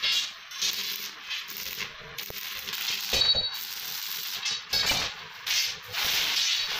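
Stick (arc) welding on a steel chair frame: the electrode arc crackling and sizzling, with a few louder knocks.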